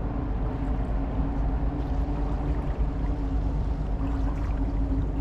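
Steady drone of a cruise ship's engines and machinery, an even low hum that holds without change.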